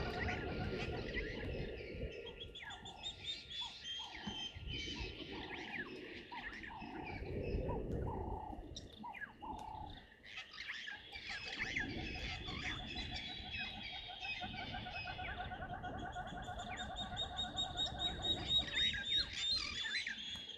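Several wild birds calling at once: overlapping chirps, trills and quick repeated notes, over a low rumble.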